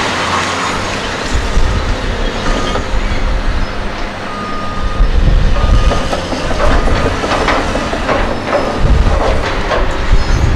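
Caterpillar demolition excavators working the rubble of a collapsed building: diesel engines running with a low rumble while metal and concrete debris clanks and crashes under the buckets and grapples. A high beep sounds on and off a few times in the middle.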